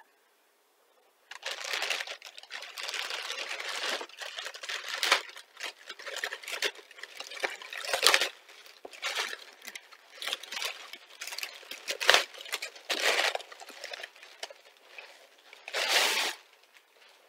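Black plastic mailer bag crinkling and rustling as it is worked open and a cardboard box is slid out of it, starting about a second in, with a few sharper crackles along the way.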